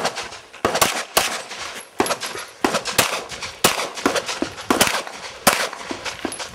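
A string of about a dozen pistol shots fired rapidly, many in quick pairs with short pauses between groups.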